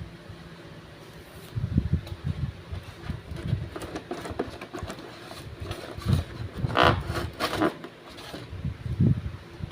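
Handling noises: irregular soft knocks and bumps, with two short scraping rustles about seven seconds in.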